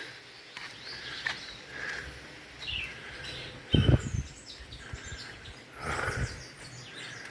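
Birds chirping outdoors in short high calls, with a few dull low thumps, the loudest about four seconds in.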